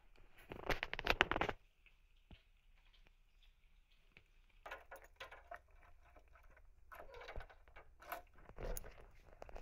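Scratchy, crackling rubbing of a black-and-white cat's fur against the recording phone's microphone as the cat rubs its face against it and is stroked, loudest in a burst about a second in, then in shorter intermittent scrapes from halfway on.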